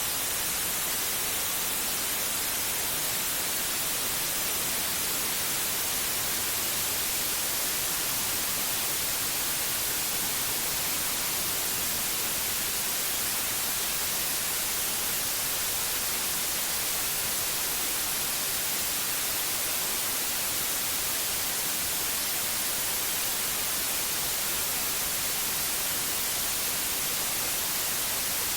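Steady white noise: an even, unbroken hiss, brightest in the high end, with no changes or separate sounds.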